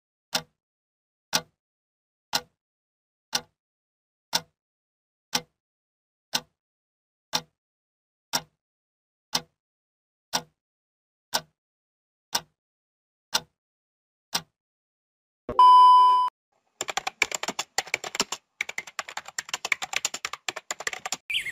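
Added editing sound effects: sharp single ticks, one a second, about fifteen in a row; then a short beep; then a rapid run of keyboard-typing clicks near the end.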